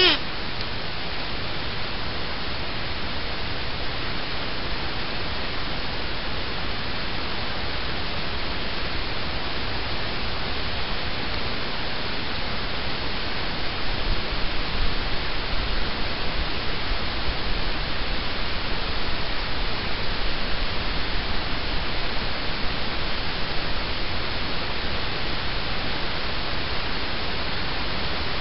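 Steady, even hiss with no distinct sounds in it; a low rumble joins it about halfway through for several seconds.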